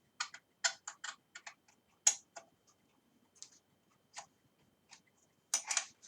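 Scattered light metallic clicks and taps, uneven in timing, as a bicycle stem is worked loose on the fork's steerer tube, with a louder cluster of clicks near the end.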